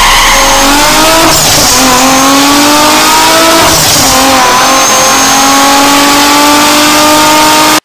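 Recorded car-engine revving sound effect from a die-cast toy Mercedes-Maybach GLS 600's sound module, set off by pressing its roof. The engine note climbs in pitch, drops back at two gear changes about a second and a half and about four seconds in, each with a short hiss, then climbs again and cuts off suddenly.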